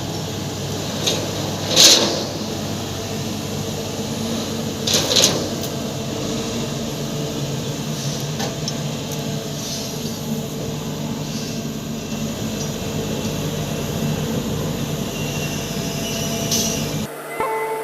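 Heavy machinery engine running steadily, with two short, sharp noises about two and five seconds in.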